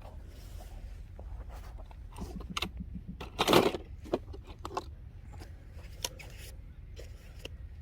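Hands and hand tools working on a peach tree branch during grafting: scattered clicks, crunches and short scrapes, with one louder rasping scrape about three and a half seconds in.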